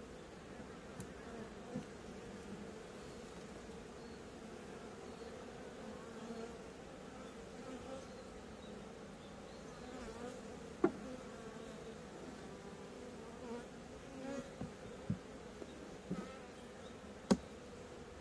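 Honeybees buzzing steadily around a wooden hive, the pitch wavering as single bees fly close by. Two sharp clicks stand out, about eleven seconds in and near the end.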